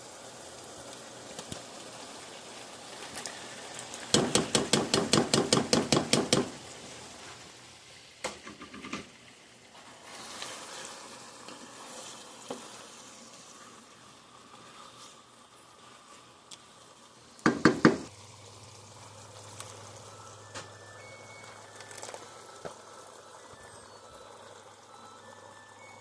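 Pot of food cooking with a low sizzle, broken by a fast run of about a dozen knocks as a utensil stirs and strikes the pot about four seconds in, and a shorter burst of knocks later on.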